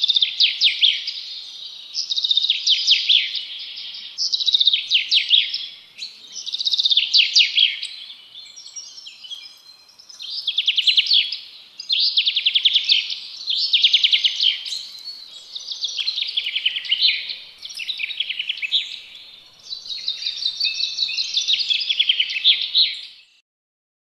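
A songbird singing in quick, twittering phrases of rapid notes. The phrases repeat roughly every two seconds, with a short softer stretch about a third of the way through, and the song stops shortly before the end.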